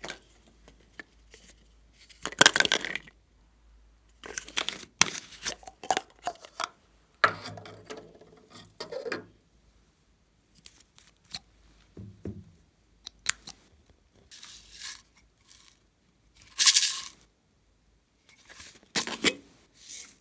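Glossy slime and plastic being handled by hand: short, separate bursts of crinkling and crackling with small clicks, loudest a little after two seconds in and again near seventeen seconds.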